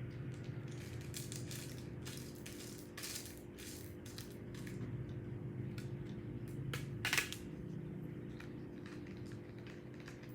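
Chocolate granola being added to a cup of yogurt and stirred in: irregular crunchy crackles and scrapes, with one louder crackle about seven seconds in.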